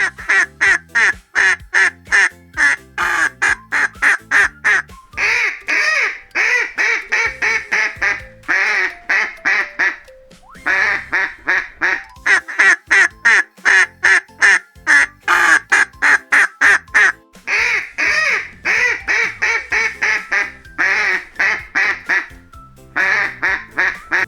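A duck quacking over and over, about four quacks a second in runs broken by short pauses, with background music underneath.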